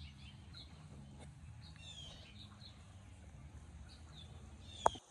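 Small birds chirping in short calls over a low steady rumble, with a sharp click near the end.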